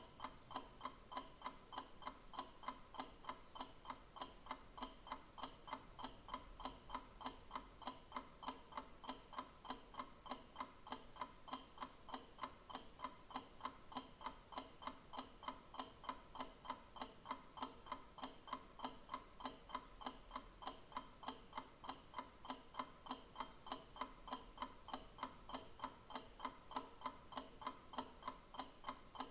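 Clock ticking steadily, an even run of sharp ticks at about two a second.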